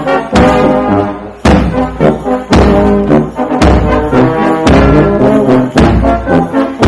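Brass band playing a march: trombones and trumpets hold chords over a bass drum that strikes about once a second, with lighter beats in between.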